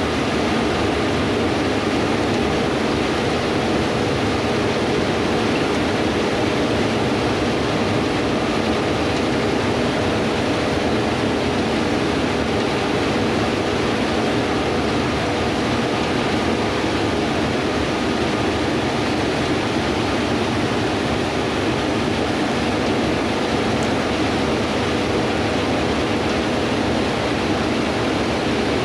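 Combine harvester running steadily while harvesting wheat: an even rushing noise with a faint steady hum underneath that never changes.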